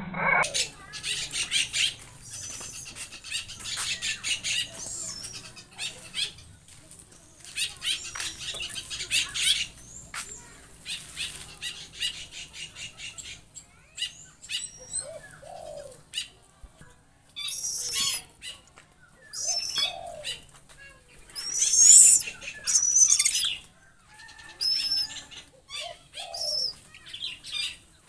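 Garden birds calling: bursts of rapid high chattering with wing flaps, then sharp, loud rising-and-falling chirps, loudest about three quarters of the way through, with a few short lower calls in between.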